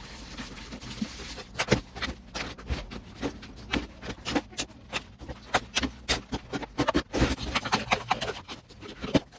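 A run of irregular clicks and knocks, several a second, with a steady hiss in the first second or so.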